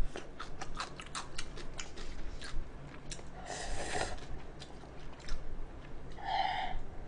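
Close-miked chewing with wet clicks and smacks as a person eats the soft toppings of an instant cup noodle. About three and a half seconds in comes a slurp as broth is drunk straight from the paper cup. Near the end there is a short vocal sound.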